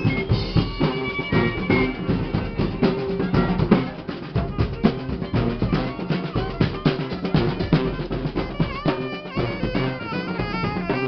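Street marching band playing live: snare and bass drums beat out a busy, driving rhythm, with held notes from horns over it.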